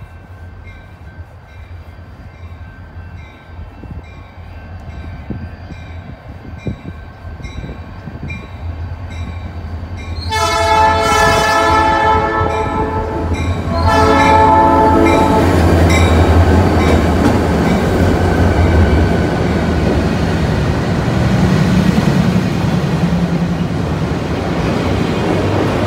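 Diesel freight locomotive approaching and passing with autorack cars: the engine rumble builds, then the air horn sounds a long blast of about three seconds and a shorter one. The train then rolls past loudly, with steady wheel and car noise.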